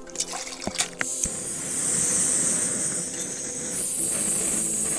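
Light metal clinks of camping cookware, then about a second in a sharp click followed by a steady hiss: a portable camping gas stove lit and burning.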